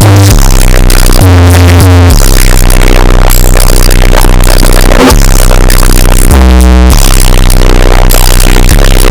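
Music boosted to the point of heavy clipping distortion (an earrape edit): harsh, saturated electronic-sounding music at full loudness, with strong bass notes that shift in pitch every second or so.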